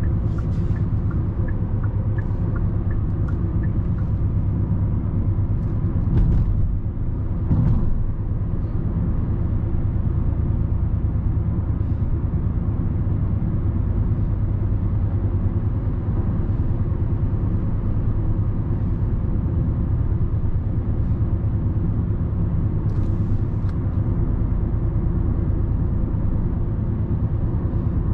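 Steady low road-and-tyre rumble with engine drone inside the cabin of a 2020 Hyundai Sonata cruising on a smooth road. There are two brief louder thumps about six and eight seconds in.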